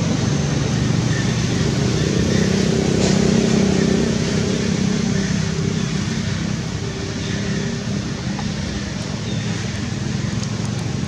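A motor vehicle's engine hum, steady and low, growing louder a few seconds in and then fading off.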